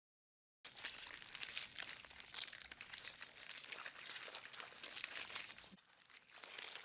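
Beetle movement sound effect: a dense, close crinkly scratching and rustling of many fine clicks, like legs and shell working over a surface. It starts after a brief dead silence, dips briefly near the end, then resumes.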